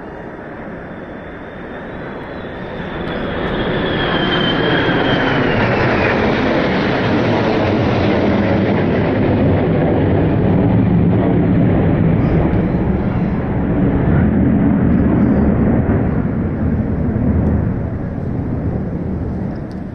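Red Arrows' BAE Hawk jets flying past overhead: a high turbine whine drops in pitch over the first few seconds as the loud jet noise builds, holds for more than ten seconds, then fades near the end.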